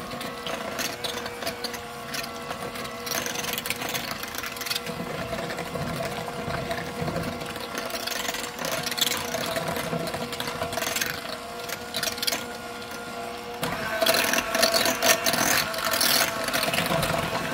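Electric hand mixer running, its beaters beating a thick pumpkin and cream cheese mixture in a bowl, with a steady motor whine. About fourteen seconds in it gets louder and harsher.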